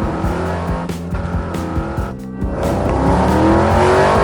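Car engine sound effect revving, its pitch climbing through the second half, over background music.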